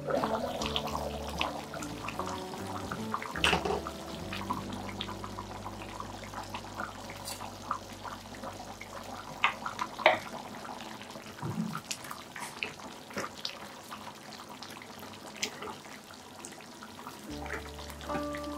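Thick curry gravy bubbling and popping in a pan on the stove while a slotted spatula stirs it, with scattered clicks of the spatula against the pan. A clink near the start as the glass lid is lifted off.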